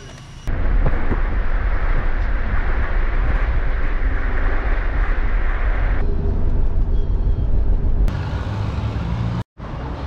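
Steady rumble and road noise of a moving car, in several short clips cut together: the sound changes abruptly about half a second in, again at about six and eight seconds, and drops out for an instant near the end.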